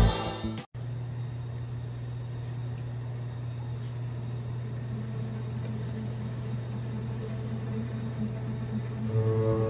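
Steady low hum of aquarium pumps running, with no other sound in it. Electronic music cuts off just under a second in, and music comes back in near the end.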